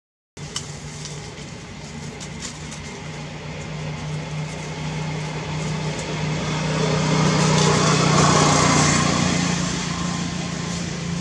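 A motor engine runs with a steady low hum. It grows louder to a peak about two-thirds of the way through and then eases off, like a motor vehicle passing by. A few faint clicks come near the start.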